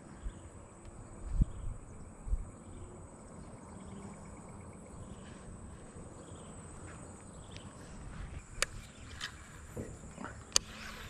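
Steady high-pitched drone of insects, with a few soft knocks in the first seconds and two sharp clicks near the end.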